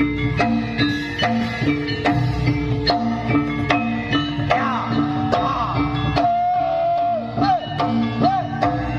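Live jaranan accompaniment music: a repeating two-note gong-chime figure over a steady drum beat, with a wavering, bending melody line coming in about halfway through.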